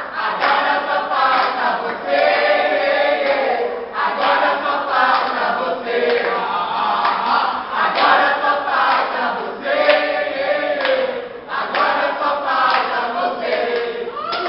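A mixed group of men and women singing a protest chant together, with hands clapping along.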